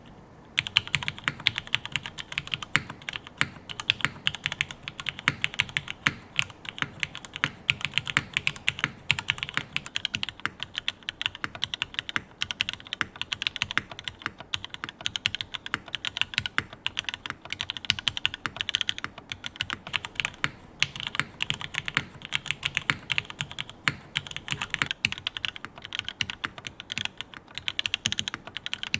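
Continuous fast typing on a Jane v2 CE mechanical keyboard with Cherry MX Black linear switches in a top-mounted aluminium plate: a dense, steady stream of keystroke clacks.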